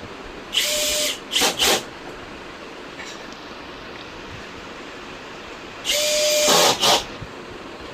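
A handheld power tool switched on in short bursts, a steady whine under a loud hiss. It runs for about half a second, then gives two quick blips, and repeats the pattern about six seconds in.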